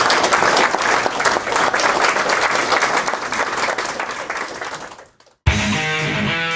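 Audience applauding, dense clapping that fades out about five seconds in. After a short gap, music starts abruptly near the end.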